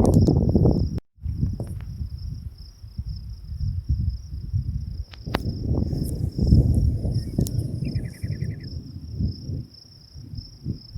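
Strong gusty wind buffeting the microphone in uneven low rushes, over a steady high insect trill such as crickets. The sound drops out completely for a moment about a second in, and a short rapid chirp sounds near the end.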